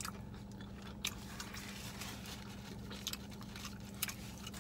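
Close-up chewing and biting into a burger, with short wet, crunchy mouth clicks scattered throughout, over a steady low hum inside a car.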